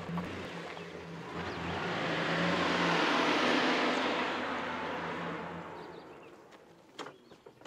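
A Nissan Frontier pickup rolling slowly past on a gravel driveway: the engine runs at low speed under the crunch of tyres on gravel, swelling as it passes close and fading out about six seconds in. A single knock follows near the end.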